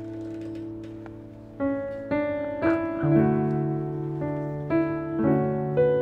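Slow, gentle piano background music, a melody of notes about two a second over held low notes.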